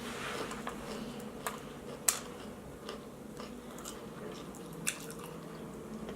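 Close-up chewing and biting of breaded vegan chicken nuggets and tater tots: soft mouth sounds with a few sharp crunchy clicks, the loudest about two seconds in, over a faint steady hum.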